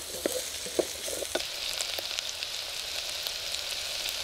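Sliced onions frying and sizzling steadily in sunflower oil in a steel camping pot, already browning but still juicy. A wooden stick stirring them knocks against the pot a few times in the first second and a half.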